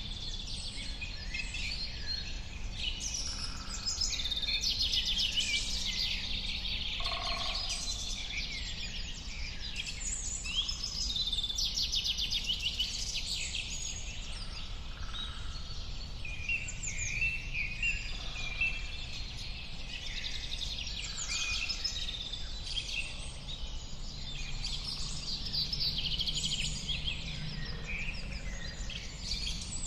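Many birds chirping and singing at once in a dense, continuous chorus of quick chirps and trills, over a steady low rumble.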